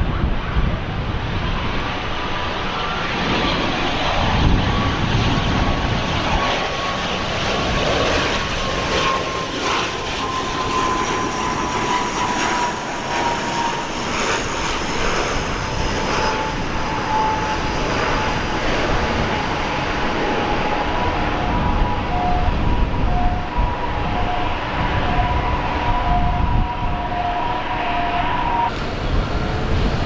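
Airliner engines at an airport give a steady whine that slowly falls in pitch, over a heavy low rumble of wind on the microphone. The whine stops abruptly near the end.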